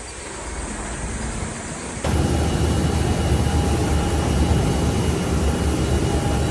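Steady engine roar with a few faint whining tones, jumping sharply louder about two seconds in.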